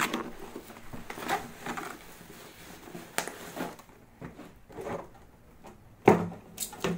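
Bubble wrap crinkling and a cardboard box being handled, with scattered small clicks and rustles. There is one loud thump about six seconds in.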